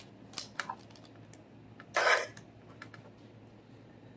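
Metal fork clicking and scraping on a parchment-lined metal sheet pan as it cuts a piece of baked apple: a few light clicks, then one louder scrape about two seconds in.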